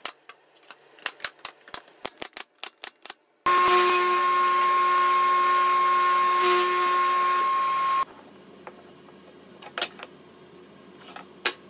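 A run of sharp clicks and knocks, then a table saw running with a steady high whine for about four and a half seconds as it cuts a wood strip on a miter sled, stopping abruptly. A few faint knocks follow.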